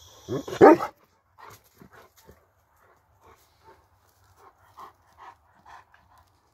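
Caucasian Shepherd dog panting in short breaths, roughly two a second, after one loud short sound about half a second in.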